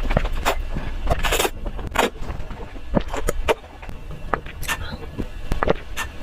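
Close-miked eating sounds: irregular crunches, smacks and mouth clicks as food is chewed, with one longer crunch about a second and a half in, over a low rumble that drops away about halfway through.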